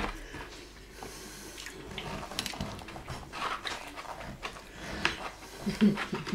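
Quiet table noises: scattered small clicks and handling sounds of food and tableware.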